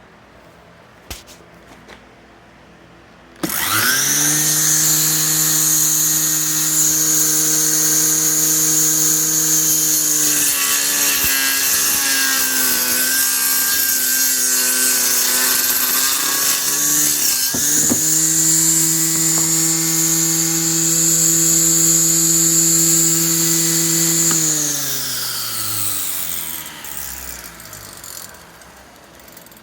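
Prototype CNC circular saw head: the blade motor starts suddenly about three seconds in with a high whine. For about seven seconds the whine drops in pitch and wavers, the blade slowing under load as it cuts 9 mm engineered wood panel. It then speeds back up running free, and near the end it winds down with a falling pitch.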